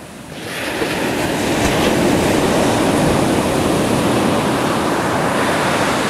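Surf on a sandy beach: a wave breaking and rushing up the shore. The noise swells about half a second in, holds loud, then eases off near the end.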